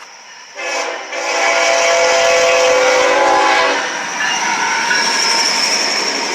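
Train horn sounding one long blast of about three seconds, starting about half a second in. After the horn stops, the train's rolling noise carries on with a thin high whine over it.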